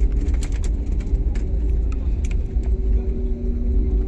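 Airliner cabin noise near landing: a steady, loud low rumble of jet engines and airflow, with scattered small clicks and rattles. A steady hum comes up more strongly about two and a half seconds in.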